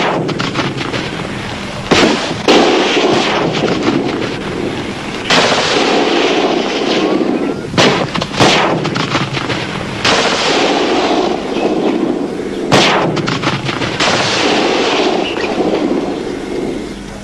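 Battlefield artillery: a series of heavy blasts from field guns and bursting shells, one every one to three seconds, each trailing off in a long rumble over a continuous din of firing.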